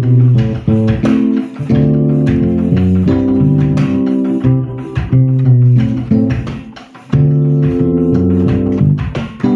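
Yamaha digital piano playing a slow highlife groove: chords in the right hand over a descending left-hand bass line moving through a 1-6-2-5 progression in C. The playing thins out briefly about seven seconds in, then picks up again.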